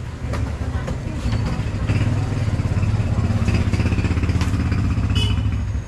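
Honda XR200 motorcycle's single-cylinder four-stroke engine running, getting louder about a second in, with scattered sharp clicks over it.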